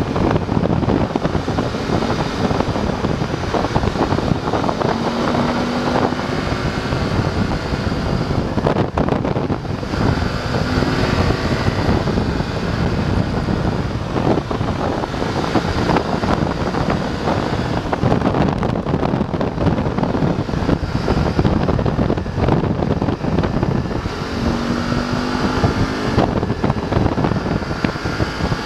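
BMW F850 GS parallel-twin engine running while riding, its pitch rising several times as it accelerates, under heavy wind rush over the microphone. The owner finds this Chinese-built engine doesn't sound very good.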